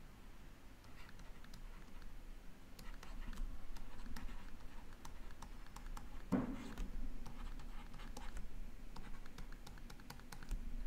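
Stylus tapping and scratching on a tablet screen while handwriting, a run of light, irregular ticks. One louder, dull knock about six seconds in.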